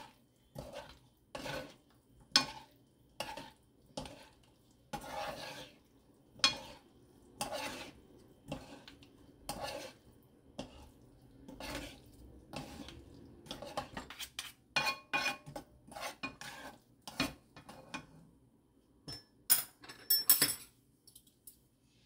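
Two wooden spatulas tossing and stirring julienned squash in a nonstick frying pan off the heat, a string of short scrapes and knocks on the pan, coming faster for a few seconds past the middle. After a brief pause near the end come a few sharp, ringing clinks as metal chopsticks touch the pan.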